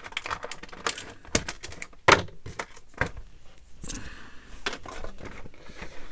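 Scissors snipping and cutting into a stiff clear-plastic blister package: a run of sharp clicks and plastic crinkles, the loudest snap about two seconds in.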